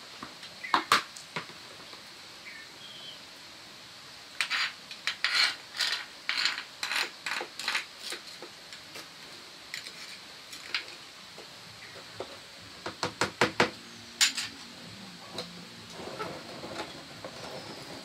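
Kitchenware knocking and scraping: a run of quick strokes, a few seconds of scattered clicks, then a fast cluster of knocks near the end.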